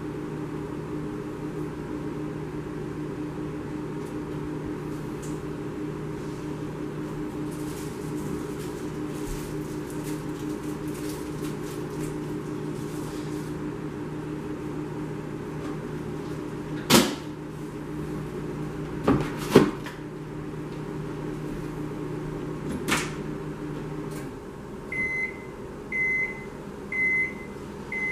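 Microwave oven running with a steady hum that stops about three-quarters of the way through, followed by four short beeps about a second apart signalling the end of its cycle. A few sharp knocks of kitchen doors or items sound while it runs.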